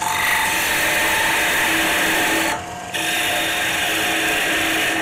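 Parting tool cutting into the base of a spinning maple chalice on a wood lathe: a steady hissing cut with a faint whine in it. There is a short pause just past halfway, between one parting cut and the next.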